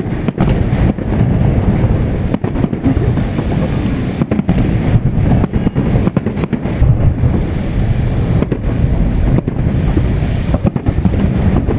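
Fireworks salute heard through heavy wind buffeting the microphone: a dense, continuous low rumble without clear separate bangs.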